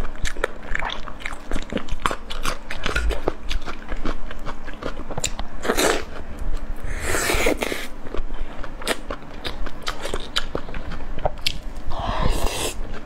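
Close-miked eating: pork sausage being bitten and chewed, with many small wet mouth clicks and a few longer, louder mouth noises about six, seven and twelve seconds in.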